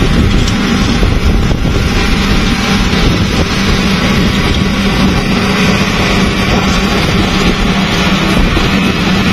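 LiuGong wheel loader's diesel engine running steadily under load as its bucket pushes a pile of dirt, a constant low hum.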